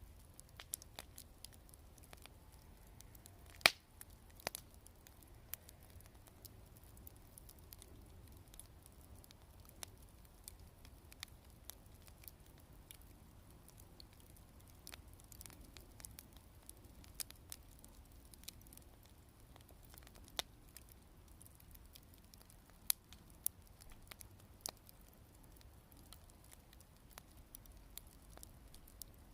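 Wood campfire crackling faintly, with scattered sharp pops and snaps; the loudest pop comes a few seconds in, and a few more come near the end.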